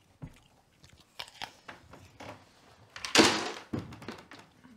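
Backgammon checkers and dice clicking and knocking on a wooden board, a series of short clacks with one louder, longer burst about three seconds in.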